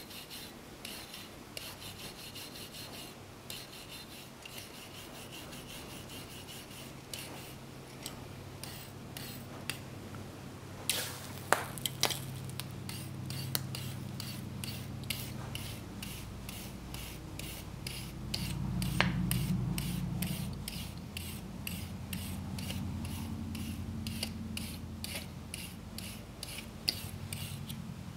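Brass wire brush scrubbed rapidly back and forth over a hot forged steel leaf on the anvil, a rhythmic run of rasping strokes that rubs a thin brass finish onto the steel. A few sharper clinks come near the middle.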